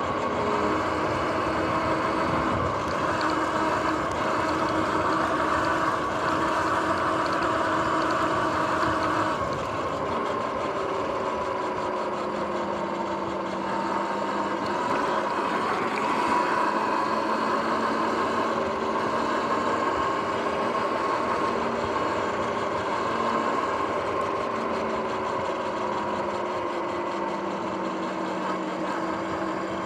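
Sur-Ron X electric dirt bike riding along, its electric motor whining in several held tones that shift and slowly rise and fall in pitch as the speed changes, over steady road and wind noise.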